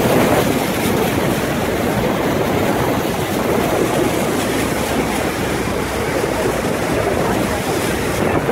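Steady, loud rushing roar of the American Falls at Niagara, with the churning water around the tour boat, unbroken throughout.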